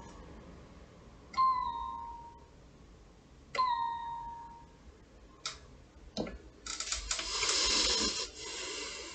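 Electronic music score: two bell-like strikes about two seconds apart, each dipping slightly in pitch as it fades, followed by a couple of sharp clicks and a hissing swell of noise near the end.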